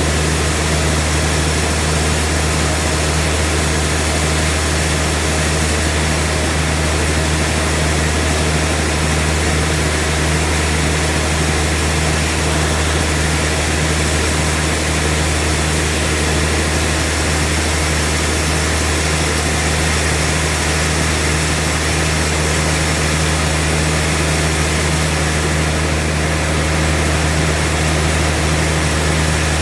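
Sawmill machinery running steadily with a deep, even hum and a constant noisy rush, unchanging throughout.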